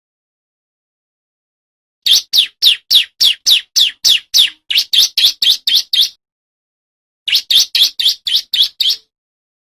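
Male bar-winged prinia (ciblek) singing its rapid-fire song: two runs of loud, sharp notes, each note falling in pitch, about three a second. The first run starts about two seconds in and the second comes near the end.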